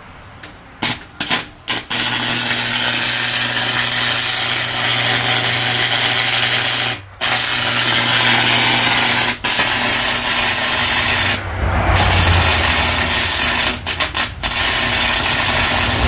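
Electric arc welding on thick steel gears: a crackling, hissing arc with a faint low hum. It strikes a few short times about a second in, then runs steadily, stopping briefly about seven and nine seconds in, and again near the end with a few quick restarts.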